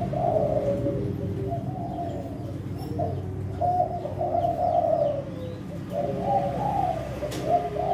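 Caged spotted doves of the Kelantan song strain (tekukur/derkuku) cooing in short repeated phrases, more than one bird at a time.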